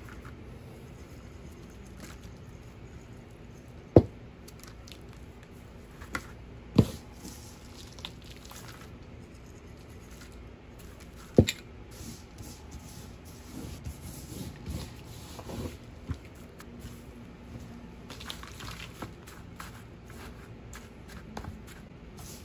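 Hands pressing and mixing straw with grain spawn in a plastic bucket: rustling and crunching of straw, with three sharp knocks about four, seven and eleven seconds in.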